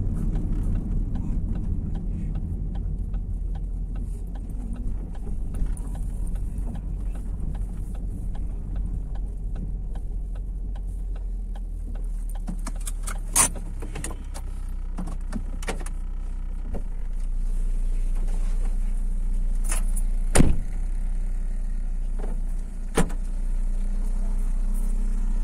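Ford Focus hatchback driving, heard from inside the cabin: a steady low road and engine rumble, with loose coins rattling inside the car. There are three sharp knocks in the second half, the loudest about twenty seconds in.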